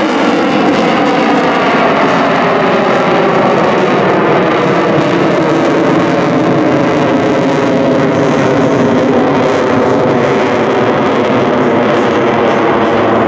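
CF-18 Hornet's twin General Electric F404 turbofans in full afterburner, a loud, steady jet noise whose pitch sinks slowly as the fighter climbs away.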